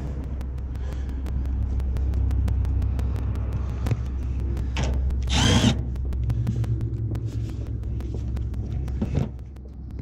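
A cordless drill runs in one short burst about halfway through, over a steady low rumble, with a few light knocks.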